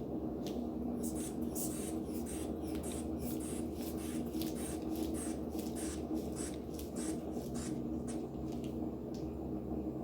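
Rubber bulb of a manual sphygmomanometer squeezed again and again, about three quick squeezes a second, each a short puff of air, as the blood-pressure cuff is pumped up. A steady electrical hum runs underneath.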